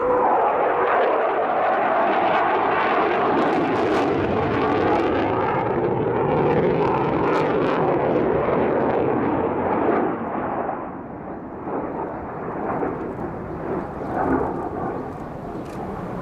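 JASDF F-15J Eagle's twin F100 turbofans heard in flight: a loud, rough jet noise. About ten seconds in it drops somewhat and turns uneven.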